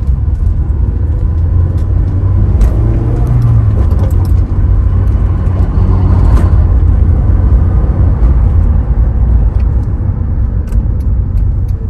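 Honda S2000's four-cylinder engine and road noise on a test drive, a steady low rumble heard from inside the cabin, with the engine note rising briefly about three seconds in.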